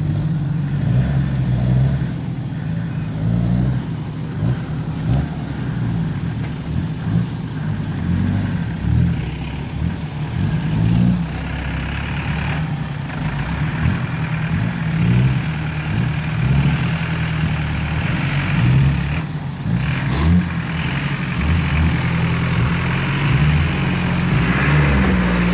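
Land Rover Defender's engine working under load, revving up and down again and again as it crawls through a flooded, muddy track.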